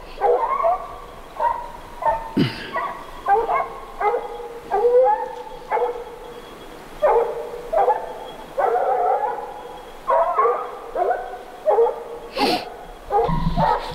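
A pack of hunting hounds baying on a bobcat's track: irregular, overlapping calls from several dogs, one to three a second.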